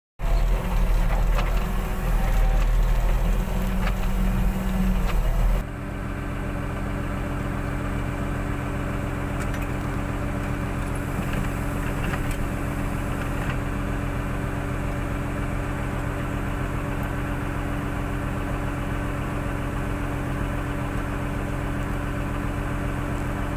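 Construction machine's diesel engine running with a heavy low rumble for about the first six seconds, then dropping abruptly to a steady idle.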